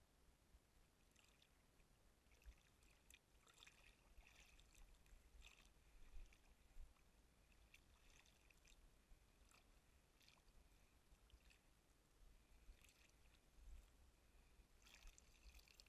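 Faint, irregular little splashes and trickles of water lapping against a small fishing craft as it moves across calm water.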